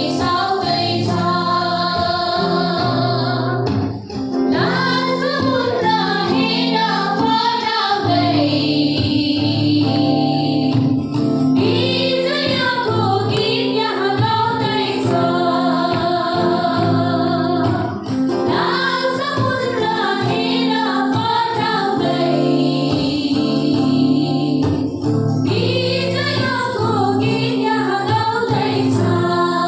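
Women singing a Christian worship song together over a steady music backing.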